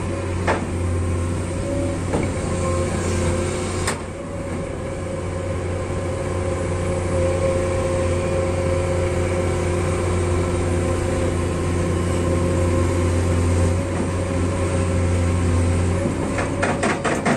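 Heavy diesel engines of mine equipment (a Komatsu PC200 hydraulic excavator working a mud pile, with a haul dump truck beside it) running steadily with a deep hum. There are a couple of short knocks early on and a quick run of clicks near the end.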